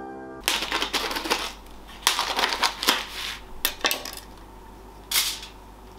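Plastic food packaging, a tray of raw meatballs with its lid, crinkling and crackling as it is handled and opened, in several short bursts.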